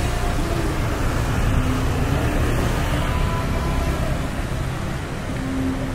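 Street traffic: motor scooters and cars passing close by on a busy road, a steady engine rumble.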